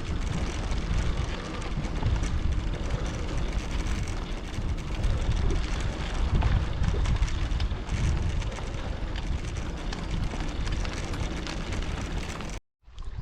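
Wind buffeting the microphone while riding: a loud, gusty low rumble with a steady rush over it. It cuts out abruptly for a moment near the end.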